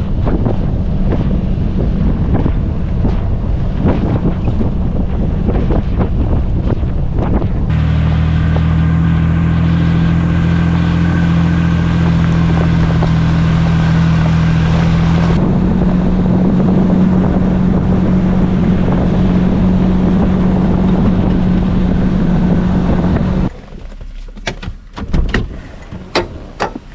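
Jeep engine running steadily while driving a backcountry trail, with wind noise on the microphone; the engine note changes abruptly twice. Near the end the engine sound stops and gives way to a few sharp clicks and knocks.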